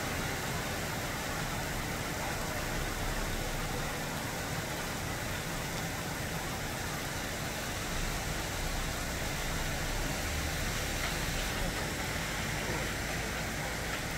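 Steady rain falling on the leaves of a Chinese fringe tree: an even hiss of drops over a low, constant rumble.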